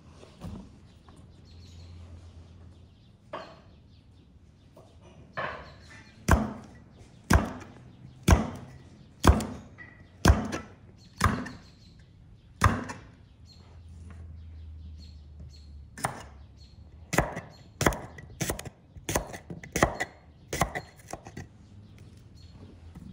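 Kitchen knife chopping vegetables on a wooden cutting board: about eight even strikes roughly a second apart, then after a pause a quicker, uneven run of cuts.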